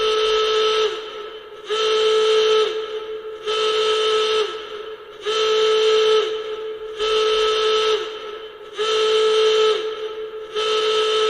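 A loud whistle-like signal tone sounds seven times in a steady rhythm. Each blast lasts about a second, comes roughly every second and three-quarters, holds one pitch, and sags briefly in pitch as it cuts off.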